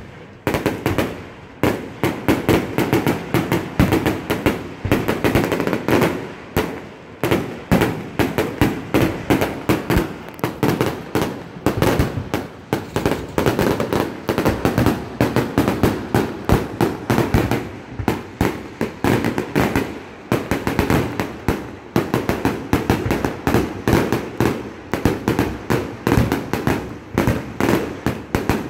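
Aerial firework shells bursting in a dense barrage, several sharp bangs a second without a break.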